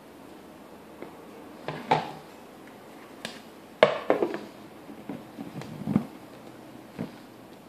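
Plastic microwave-cooker lid being set down on a glass bowl and worked into place: a series of light knocks and clatters, the loudest about four seconds in.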